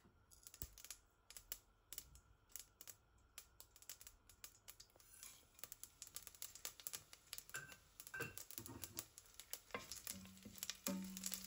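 Mustard seeds popping and crackling in hot oil in a stainless-steel pot: a quick, irregular run of sharp little pops. About halfway through, the sizzle thickens as seed spices and a cinnamon stick go into the oil. Near the end a wooden spoon stirs them, and a brief low hum is heard.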